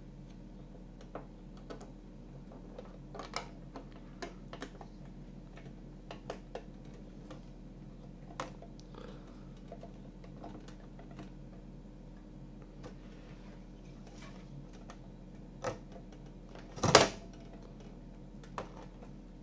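Scattered light clicks and taps of hard plastic scale-model parts being handled and pressed together, with a louder clack about 17 seconds in, over a faint steady hum. The tinted roof panel is being pushed into the body and will not snap home.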